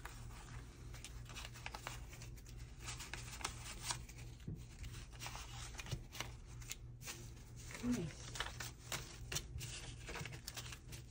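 Paper dollar bills rustling and flicking as they are counted out by hand and laid down on a desk, in many quick irregular crackles, over a low steady hum.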